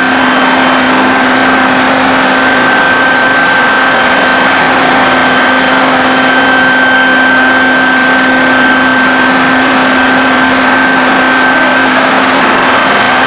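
HSD spindle on a CNC router running with a steady high whine while its bit carves a pattern into cabinet board, over a loud, continuous cutting noise. A second, lower steady hum runs alongside.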